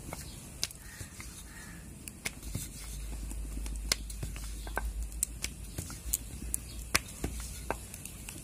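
Scattered light clicks and taps of a wooden rolling pin and fingers working rice-flour dough on a marble rolling board, with a low rumble for a few seconds in the middle.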